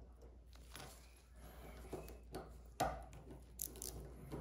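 Light metallic clicks and taps of a small spanner and gloved hands on a Shimano SPD pedal axle's cone and lock nut as the bearing adjustment is locked down. One sharper click comes a little after halfway, followed by a few lighter ones.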